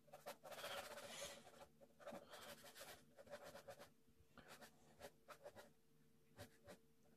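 Ballpoint pen scratching on paper in quick sketching strokes: a dense run of scribbling in the first second or so, then shorter separate strokes.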